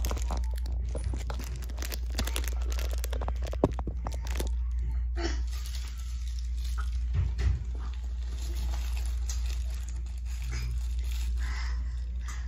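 Close rustling and crinkling, heaviest in the first few seconds and lighter afterwards, with one sharp click about three and a half seconds in, over a steady low hum.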